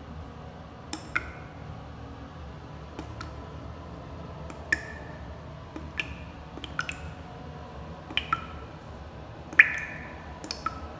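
Steady low room hum with about a dozen irregular sharp clicks and taps, several of them with a brief high squeak, most closely spaced near the middle and the end.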